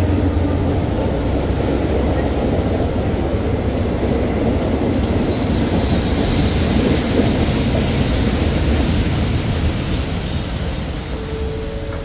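Diesel-hauled passenger train pulling in along the platform: the locomotive's heavy rumble and then the carriages rolling past close by, slowing, with high-pitched wheel and brake squeal from about halfway through for a few seconds. The noise eases a little near the end as the train comes nearly to a stop.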